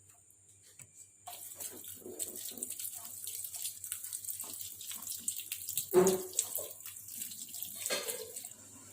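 Kitchen tap running into a sink while boiled beef bones are rinsed, with two louder knocks of bones or a pot partway through. The water starts about a second in and stops shortly before the end.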